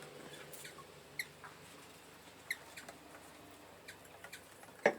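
A few short, high squeaky chirps from wild birds spaced a second or more apart, with faint ticks between, then one sharp knock near the end.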